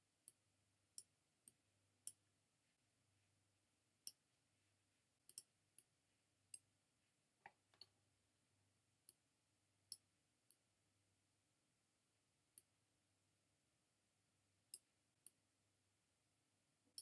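Faint, irregular computer mouse clicks, about seventeen of them spread over a near-silent background.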